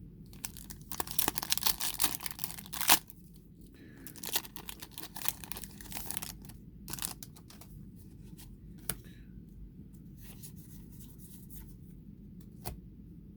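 Foil booster pack wrapper being torn open and crinkled, dense and loudest over the first three seconds with one sharp rip near the end of that stretch, then lighter crinkles and scattered faint ticks.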